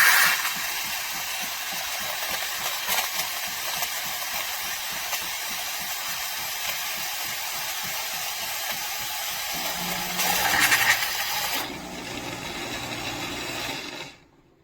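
Philips LatteGo fully automatic espresso machine steaming and frothing milk for a cappuccino: a steady steam hiss. About ten seconds in, a low hum joins with a brief louder rush, and the sound stops suddenly near the end.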